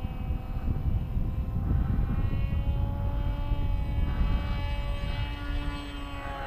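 Electric motor and propeller of an FX-61 Phantom flying wing running in flight: a steady whine that drifts slightly in pitch, over a low rumble.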